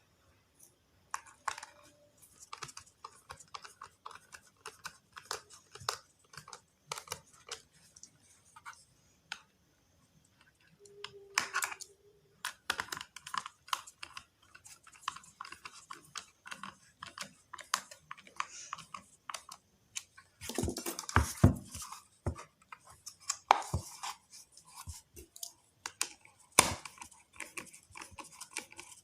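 Irregular clicks, taps and scrapes of small plastic and metal parts being handled as a portable speaker is reassembled, with a denser burst of scraping about twenty seconds in.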